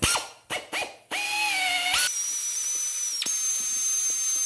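Air drill spinning a brake caliper hone in a floor jack's oiled steel cylinder bore to clean out surface rust. A few short trigger blips come first, then from about a second in it runs at a steady high whine.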